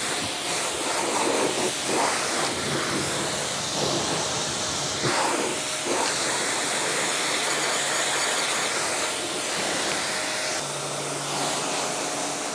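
QPT Q5 2500 W pressure washer's spray gun jetting water onto a car's body panels and windows, a steady hiss as the shampoo is rinsed off.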